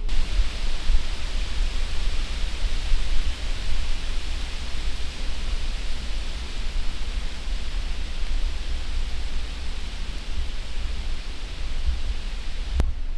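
Wind buffeting the microphone as an uneven low rumble over a steady hiss, with a single sharp click near the end.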